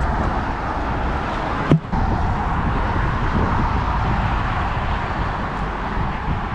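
Steady wind noise on the microphone mixed with the rush of highway traffic, and a sharp click with a brief dropout a little under two seconds in.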